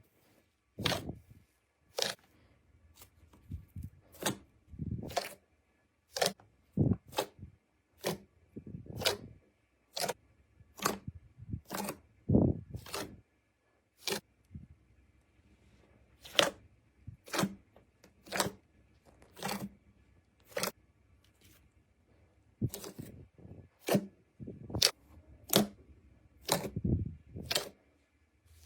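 Slime squished and pressed by hand, giving a sharp wet pop or click about once a second, each with a squelch under it.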